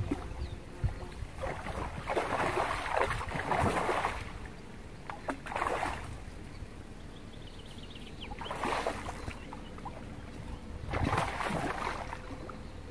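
Pond water lapping and splashing against the bank close to the microphone, in four short surges over a steady low wind rumble.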